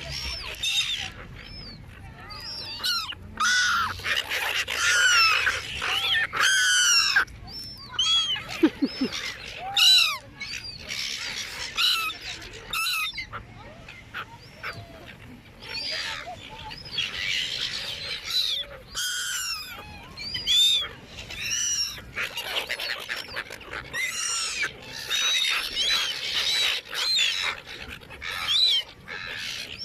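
A flock of seagulls squawking, with many short, harsh calls overlapping one another continuously. The birds are gathered to be fed chips.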